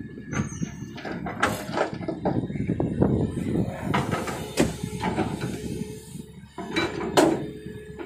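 L&T-Komatsu hydraulic excavator working: engine and hydraulics running under load as the bucket empties soil into the steel bed of a Tata dump truck, then swings back and digs into the soil pile. Several sharp knocks and clanks from the bucket and truck bed, and a steady whine comes in about two-thirds of the way through.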